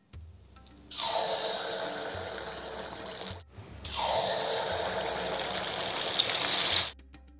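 Kandarappam batter sizzling hard in hot oil in a kadai. The sizzle starts suddenly about a second in, breaks off for a moment midway, and cuts off suddenly near the end.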